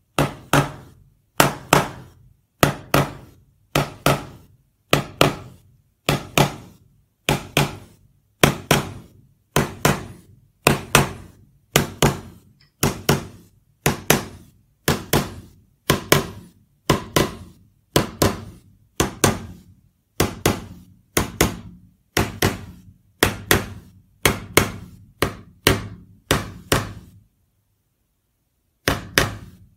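Small hammer lightly tapping the metal bezel tabs of a PowerBook 180 LCD panel, a steady run of sharp knocks with a short ring, roughly three every two seconds, pausing for about two seconds near the end. The tabs are being tapped in to clamp the bezel tighter onto the circuit board and squeeze the LCD layers together.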